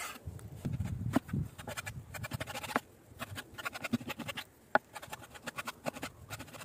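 A chef's knife slicing raw beef into strips on a bamboo cutting board, the blade tapping and knocking against the board in an uneven run of sharp strokes, quickest a second or two in.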